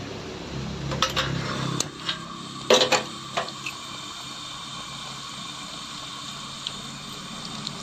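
Papdi (pricked discs of maida dough) deep-frying in hot oil in a kadhai on a low flame, a steady sizzle. About one to three and a half seconds in, a wire spider strainer clinks against the metal pan several times, loudest just before three seconds in.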